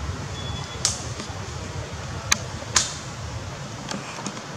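Outdoor ambience: a steady low rumble with a few sharp clicks and ticks over it, the loudest two about half a second apart near the middle.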